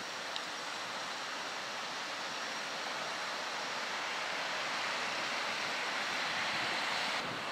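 Steady hiss of road traffic at a city intersection, heard from a distance, swelling slowly in the second half and changing abruptly just before the end.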